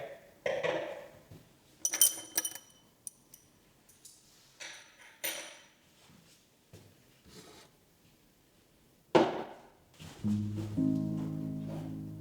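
A scattering of light knocks and clinks of objects being handled, a couple of them ringing briefly like glass or ceramic, with a sharper knock about nine seconds in. Gentle instrumental music starts near the end.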